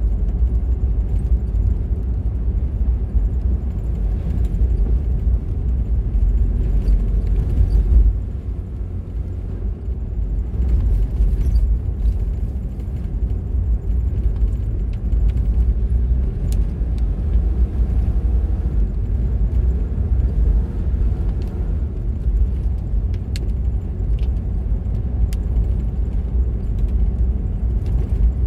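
Car on the move: a steady low rumble of road and engine noise, easing for a moment about eight seconds in, with a few faint small clicks.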